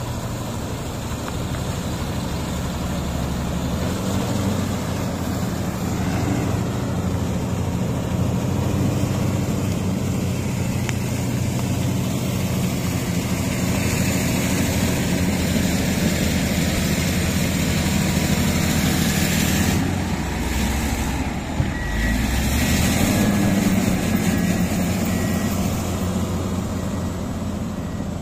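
Komatsu D155A crawler bulldozer's diesel engine running steadily under working load, its low note getting a little louder about four seconds in and changing about two-thirds of the way through.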